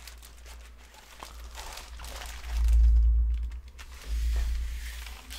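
Plastic wrapping and card of a trading-card starter pack rustling and crinkling as its contents are pulled out by hand. Two deep low rumbles come from handling, about two and a half and four seconds in.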